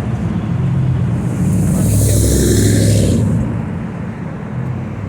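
Street traffic rumbling, with a vehicle passing close by in a rushing hiss from about one and a half to three and a half seconds in.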